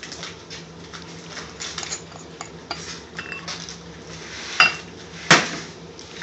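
Metal kitchen utensils and containers clinking and knocking, with light scattered clinks and then two loud sharp clanks about three-quarters of the way through, the first ringing briefly.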